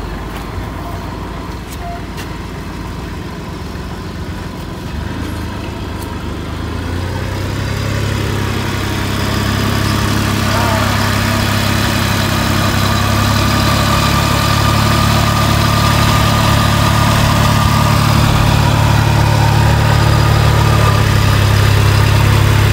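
Tractor engine running steadily, growing louder from about eight seconds in and then holding at that level.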